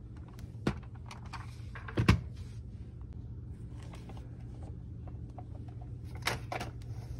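Plastic Schleich toys being handled and set down, giving a few sharp knocks and clicks, the loudest about two seconds in and another just after six seconds. A steady low hum runs underneath.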